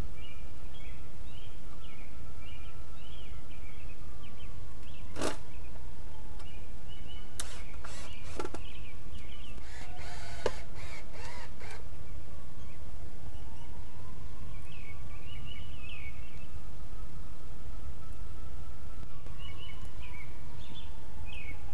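Steady low outdoor rumble with birds calling, a distant siren slowly rising and falling in pitch, and a few sharp knocks of treated-lumber boards handled against wooden posts in the middle.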